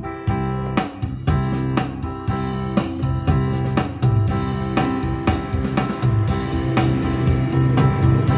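Yamaha PSR-S900 arranger keyboard playing music with guitar and a steady drum beat, sounding normally as it is tested after repair.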